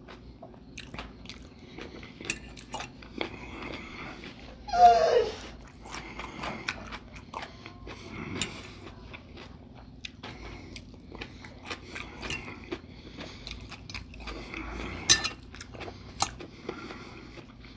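Close-up chewing and crunching of a mouthful of salad, with scattered crisp crackles. About five seconds in, a short falling whine.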